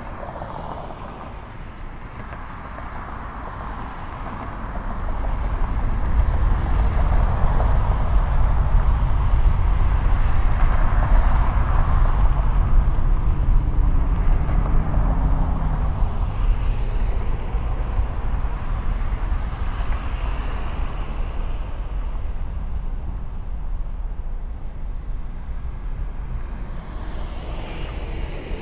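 Boeing 737-900ER's CFM56-7B turbofan engines at takeoff thrust: a loud jet rumble that swells about five seconds in, holds strongly through the takeoff roll, then eases off slowly. Near the end a car passes on the road close by.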